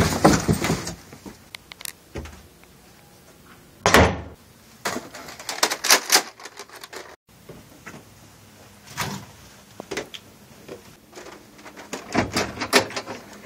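Knocking and banging on a closed wooden door, in several short bouts of sharp knocks with pauses between them.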